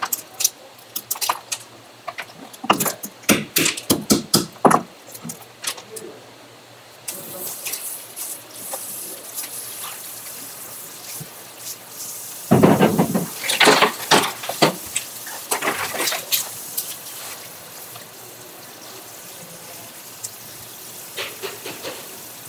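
Conch shells being cracked and broken apart on a plastic cutting board: a quick run of sharp knocks and cracks for the first five seconds or so. About seven seconds in, a handheld spray nozzle comes on with a steady hiss of water rinsing shell fragments off the board, with a louder splashing rush around twelve to fifteen seconds in.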